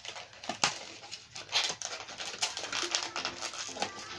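Hands rummaging through a cardboard parcel of computer parts: irregular clicks, knocks and rustling as items are moved and handled.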